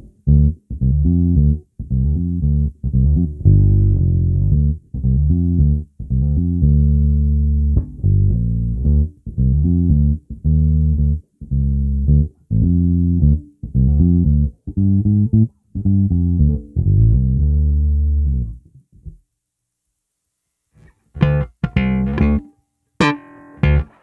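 Squier Classic Vibe '60s Precision Bass plucked through a Fender Rumble 100 bass amp, with the volume knob full and the tone knob fully rolled off: a dark, muffled run of bass notes. After a pause about 19 seconds in, the notes return much brighter, with the tone knob turned fully up.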